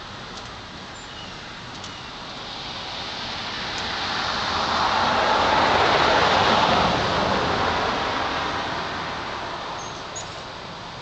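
A vehicle driving past: a steady rush of tyre and engine noise that swells to a peak midway and then fades away.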